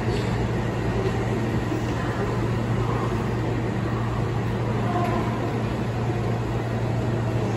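Odakyu 50000 series VSE electric train standing at the platform, giving a steady low hum that holds even throughout.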